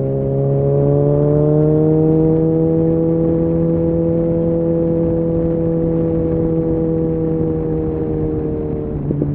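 Suzuki Bandit 650's inline-four engine pulling steadily while riding, its note rising gently at first and then holding level. Near the end the pitch eases off and briefly breaks before picking up again.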